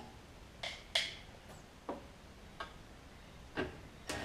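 About six light, sharp clicks and clinks at uneven intervals: small metal bolts and hand tools being handled and set down.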